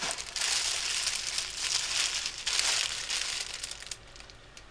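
Packaging bag crinkling and rustling as it is handled, dying down about four seconds in.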